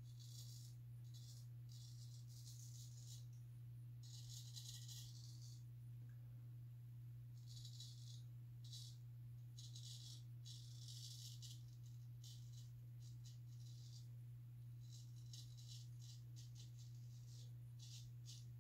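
Straight razor scraping through lathered stubble in short, irregular strokes, each a dry scratchy rasp, over a steady low hum.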